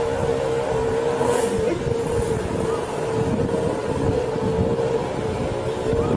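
Sport motorcycle engine running at steady revs, one unchanging tone, as the bike wades through seat-deep floodwater that churns around it.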